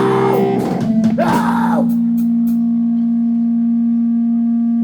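Amplified electric guitar ringing through the PA: sustained tones with some bending pitches in the first couple of seconds, then a single note held and sustaining steadily.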